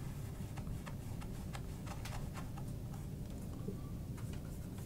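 Light, irregular ticks and taps of a paintbrush working on a canvas and palette, over a steady low room hum.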